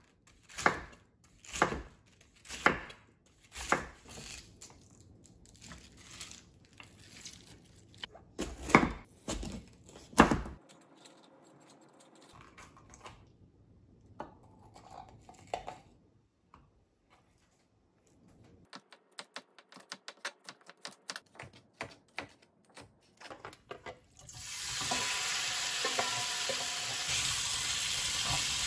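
A kitchen knife chops cabbage on a wooden cutting board with sharp knocks, then slices bell peppers with fainter cuts. About 24 seconds in, pieces of chicken hit a hot oiled frying pan and start sizzling steadily.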